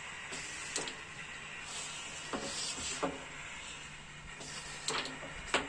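Light clicks of a carrom striker and coins on a powdered wooden carrom board: a few scattered taps, then a sharper pair of clicks near the end, the second the loudest.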